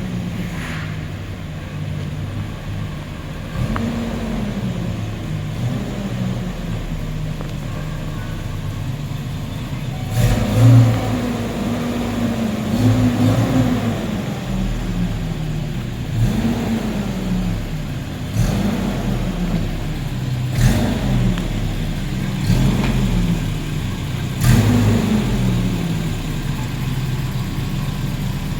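Car engine idling and being blipped up and down in short revs: once early on, then repeatedly about every two seconds through the second half.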